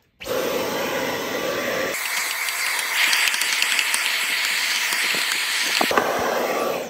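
Handheld stick vacuum with a brush nozzle running, sucking plastic drilling shavings out of a plastic enclosure. Scattered small clicks come through as the shavings are drawn in. The sound starts suddenly, changes tone about two seconds in, and cuts off near the end.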